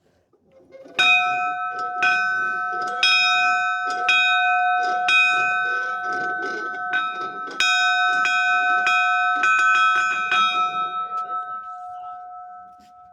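Steam locomotive's bell rung repeatedly, struck about once a second and a little faster towards the end, then left to ring out and fade.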